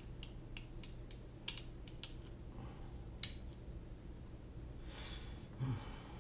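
Light clicks and taps of carbon-fibre drone frame parts, small screws and hex drivers being handled on a silicone work mat during frame assembly, the sharpest clicks about one and a half and three seconds in.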